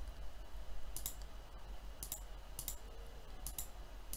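A handful of sharp computer mouse clicks, spaced irregularly, two of them close together near the end, over a steady low hum.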